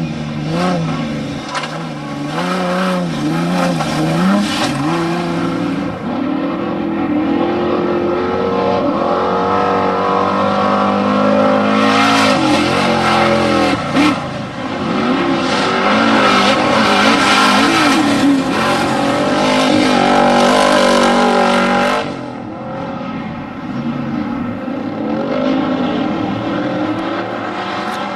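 Off-road desert race vehicle engines revving up and down as they race, at times several at once. About two-thirds of the way through, the sound drops abruptly in level and changes.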